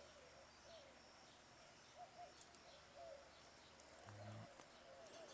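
Near silence with faint bird calls: short, wavering notes repeating every second or so.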